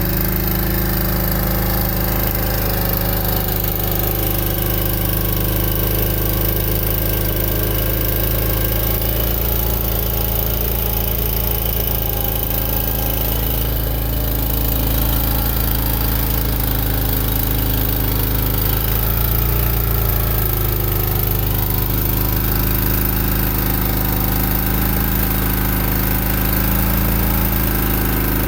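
Chain trencher's engine running steadily under load as its digging chain cuts a trench in the ground.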